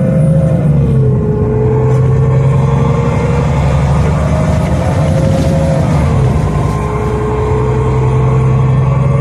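Solaris Urbino 12 III CNG bus's Iveco Cursor 8 gas engine heard from inside the rear cabin, pulling under acceleration. Its note rises steadily and drops twice, about a second in and about six seconds in, as the Voith automatic gearbox shifts up.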